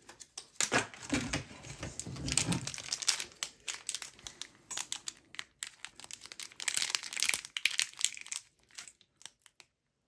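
Plastic packaging around a small M.2 SSD crinkling and crackling in the hands, in irregular crackles that die away near the end.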